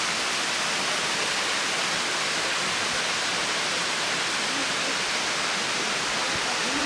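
Steady rush of a waterfall: an even, unbroken hiss of falling water, strongest in the upper range.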